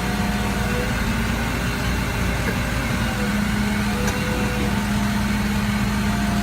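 Rollback tow truck's engine running steadily while the hydraulic bed slides out under a disabled vehicle, a constant hum with a held tone.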